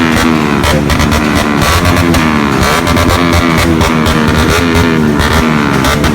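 Loud music with a guitar playing.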